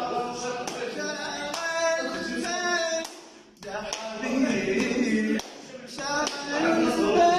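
A man singing an Arabic song in drawn-out phrases, with sharp hand claps keeping a steady beat. The singing breaks off briefly about three seconds in, then resumes.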